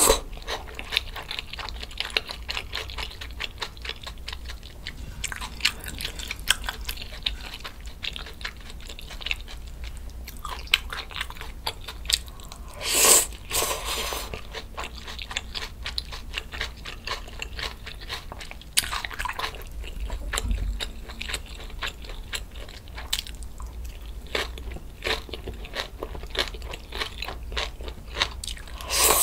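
A person chewing and eating close to the microphone: steady mouth clicks and crunches, with two longer, louder bursts about 13 and 19 seconds in.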